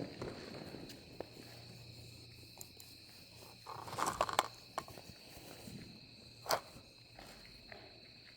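Scattered footsteps and a few sharp knocks over a steady, high-pitched insect drone outdoors at night; the loudest moments are a short scuffle about four seconds in and a single knock about two seconds later.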